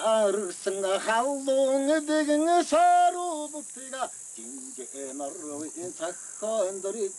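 People's voices, talking or singing in phrases, over a steady high chirring of crickets.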